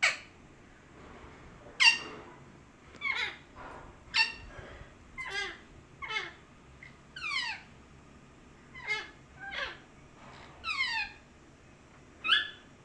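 Pet parrot calling, about a dozen short falling screeches roughly one a second.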